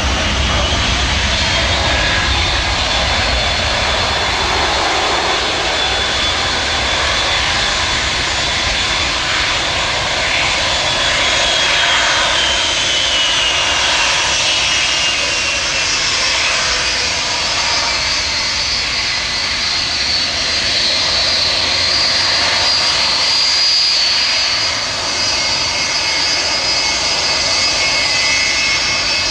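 Boeing 757-200's twin Rolls-Royce RB211 turbofans running at low thrust while the airliner taxis close by: a steady jet roar with a high whine. The whine drops in pitch about a third of the way in, then higher whining tones climb as the aircraft draws near.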